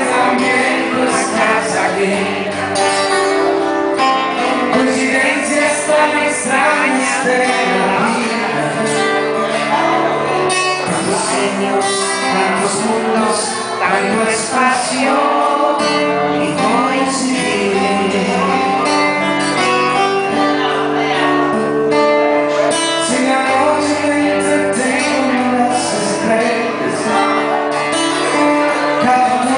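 Live acoustic performance: a nylon-string classical guitar played alongside a man singing into a microphone.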